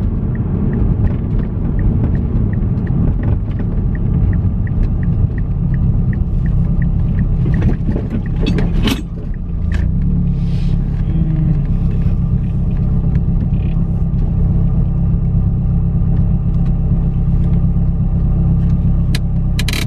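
Cabin sound of a Mazdaspeed 3 being driven: the 2.3-litre turbocharged four-cylinder and the road make a steady low rumble. For the first several seconds a faint even ticking, about three a second, runs over it, like the turn signal.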